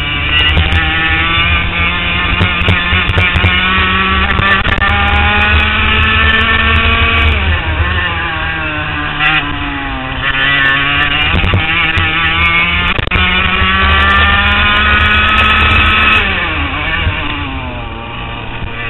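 Racing kart's small two-stroke engine running hard at high revs, its pitch climbing slowly and steadily, then falling sharply twice as the throttle is lifted, about eight seconds in and again near the end, before climbing again.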